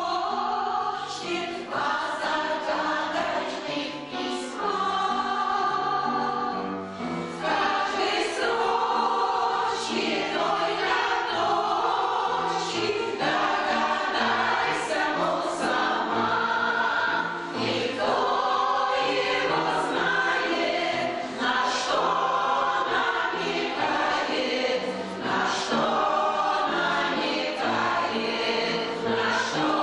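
A choir of older amateur singers, a labour veterans' choir, singing a song together with accompaniment.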